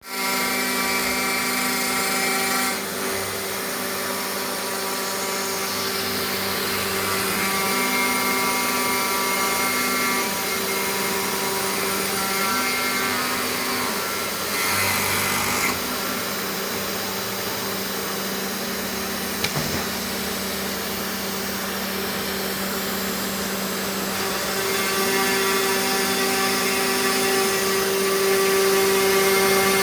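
The 500 W spindle of a homemade CNC router runs with a steady whine while its end mill cuts 3 mm plywood. A second, lower motor tone switches on and off every few seconds as the machine's axes move. About halfway through there is a brief, harsher stretch of cutting noise.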